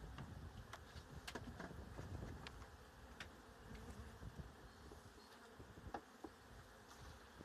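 Faint buzzing of honeybees, with a few light clicks and taps scattered through it from small wooden mating-nuc frames being handled.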